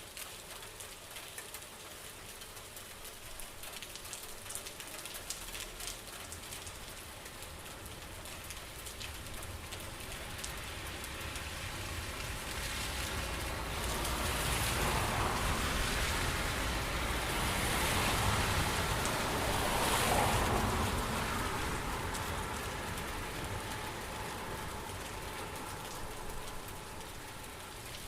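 Steady rain falling, swelling louder for several seconds in the middle with a low rumble underneath, then easing back.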